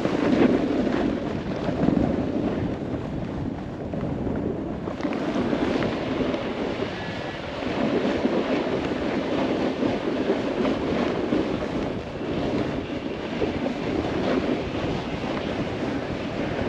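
Wind rushing over the camera microphone while snowboarding at speed, with the hiss of the board sliding over snow. The rush swells and eases without a break.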